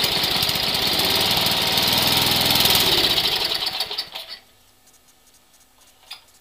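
Snowblower's small gas engine running just after a cold start at about 20°F, then shut off about four seconds in and dying away. A single light click follows near the end.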